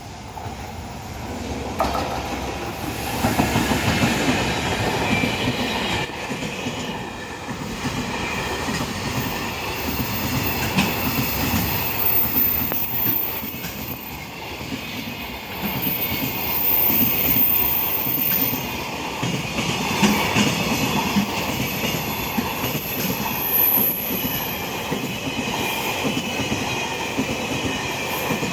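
Freight train rolling past at a level crossing, its wheels clacking in rhythm over a Super Joint insulated rail joint. A thin, high wheel squeal comes and goes over it.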